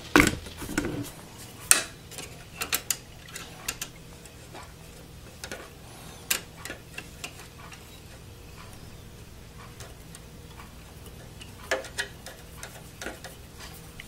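Scattered small clicks and taps of a small Phillips screwdriver and the plastic graphics card bracket in a desktop computer case while a bracket screw is worked loose, coming in short irregular clusters.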